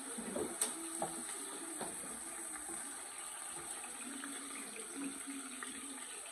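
Tomato and onion sauce simmering in a pan, a steady bubbling hiss, with a few light knocks of the stirring spoon against the pan in the first couple of seconds.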